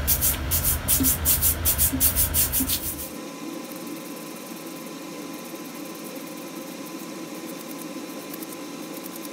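Steel wire brush scrubbing a rusty bolt and nut that have just come out of an acid bath, in quick strokes at about four a second; the strokes stop about three seconds in. A steady, fainter hum goes on after that.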